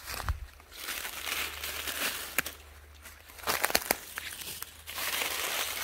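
Dry fallen leaves rustling and crackling as a hand brushes through the leaf litter, in several short bursts with sharp clicks among them.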